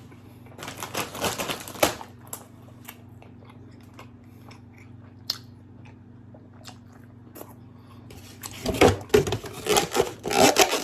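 Close-miked chewing and biting into birria tacos, with crunching and wet mouth sounds, in two bouts: one about a second in and a louder one near the end.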